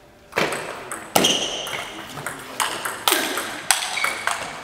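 Table tennis rally: the ball clicking sharply off bats and table about twice a second, starting a moment in, each hit echoing in a large sports hall.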